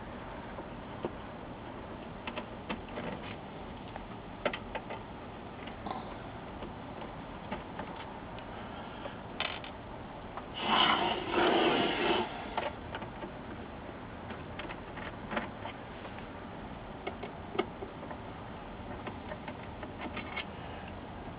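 Small Phillips screwdriver backing screws out of the metal frame of an LCD panel: scattered light clicks and ticks of the tool and screws. A louder stretch of handling noise lasts about two seconds around halfway through.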